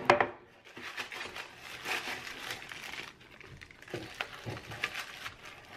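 Plastic baggie worn on a hand crinkling and scraping against the inside of a metal Pullman loaf pan while butter is rubbed on, in irregular strokes, with a sharp knock of the pan at the start.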